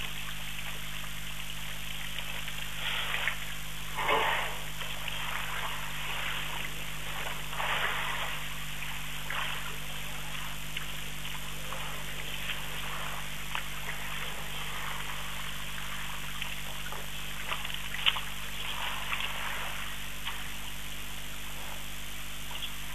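Water trickling and splashing as African elephant bulls drink and wade in a shallow river, with irregular louder splashes, the strongest about four seconds in. A steady low hum sits underneath.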